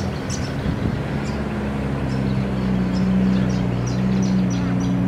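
A 4WD's engine running at a steady, unchanging pitch as the vehicle drives slowly past along a sand track, growing a little louder toward the middle.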